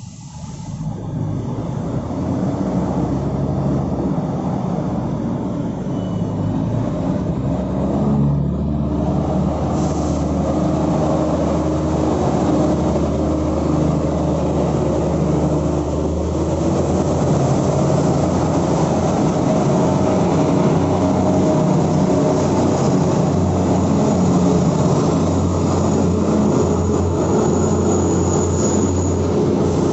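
Express diesel railcar train moving out along the platform, its diesel engines running under power with a steady low rumble and the cars rolling past; the sound swells over the first couple of seconds. A thin high whine comes in near the end.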